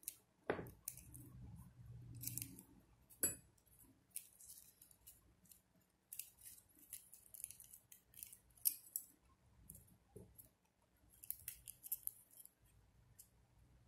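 Shiny ribbon rustling in short, irregular scratches as the petals of a folded-ribbon flower are adjusted with metal tweezers. Two sharp clicks come about half a second and about three seconds in.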